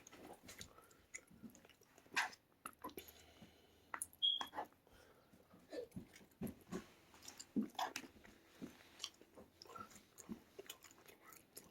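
Faint, close-up chewing and biting as someone eats a plate of leftover rice and vegetables, with small scattered mouth clicks. A short high tone sounds about four seconds in.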